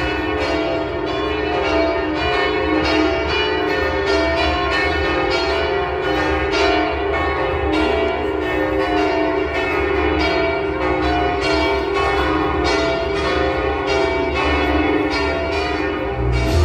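Church bells of Notre-Dame's north tower pealing: rapid, overlapping strokes several times a second over a sustained ringing hum. A low drone comes in near the end.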